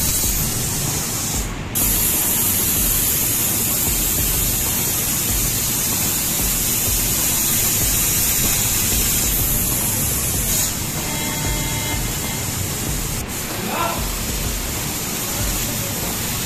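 1.5 kW Senfeng fiber laser cutter cutting 16 mm steel plate: a steady hiss of assist gas jetting from the cutting head onto the cut. The hiss breaks off briefly about a second and a half in.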